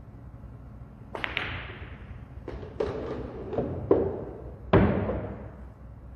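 Pool shot on a Diamond table: the cue tip strikes the cue ball about a second in, followed at once by the click of the cue ball hitting an object ball. A quick series of sharp knocks follows as balls hit the cushions and each other, then the loudest sound, a deeper thud, a little before the end.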